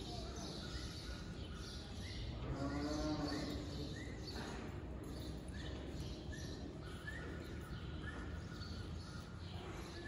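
Indoor arena ambience with short high chirps, like birds, repeating every second or so. About two and a half seconds in, one animal call rises and falls for about a second.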